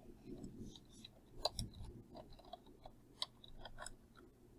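Faint, irregular clicks from a computer mouse, the plainest about a second and a half in.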